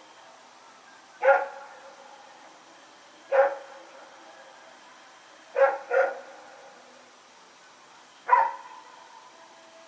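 Belgian Malinois barking at night: five sharp single barks spaced about two seconds apart, two of them close together in the middle, each trailing off in a short echo.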